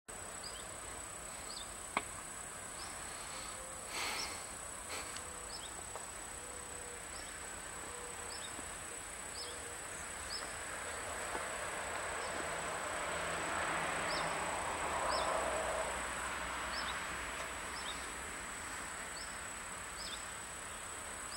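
Insects chirping at dusk: short high chirps repeating irregularly, about once or twice a second, over a steady high whine and faint background noise.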